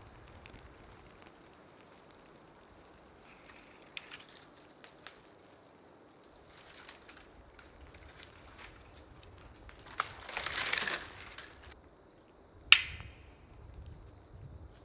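Footsteps crunching in snow with scattered small crunches and knocks, a louder spell of rustling and crunching about ten seconds in, and one sharp knock with a brief ring near the end.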